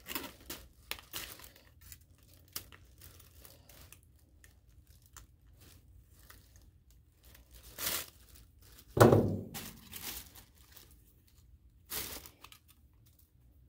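Tissue-paper sky lantern rustling and crinkling as it is handled while its wires are snipped with pliers' wire cutters: scattered small clicks and rustles. Near the nine-second mark comes one louder crinkling thump.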